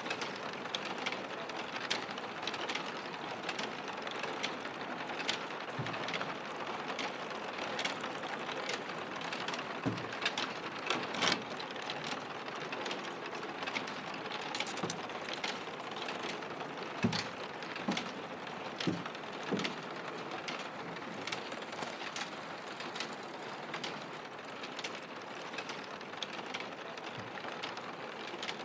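Factory machinery running: a steady mechanical din with irregular clicks and knocks, a few of them louder.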